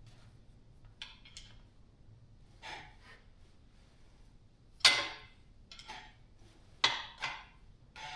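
Metal engine parts knocking and clinking as they are handled and set down, a handful of separate clanks with the loudest about five seconds in.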